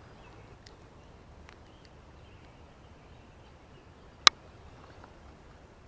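Faint outdoor background with a few soft ticks, and one sharp click about four seconds in.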